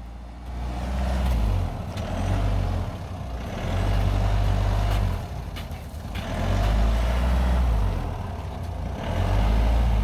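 Off-road vehicle's engine revving in about five surges and easing between them while the vehicle creeps through a cut in packed snow under load.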